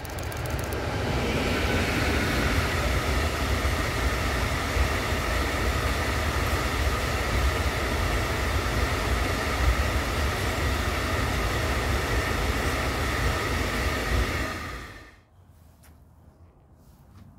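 Freight train of tank wagons behind a Bombardier TRAXX class 186 electric locomotive passing close by: a steady rumble of wheels on rail with a faint high ringing hum over it. It builds up over the first second or two and drops away quickly about fifteen seconds in as the last wagon goes by.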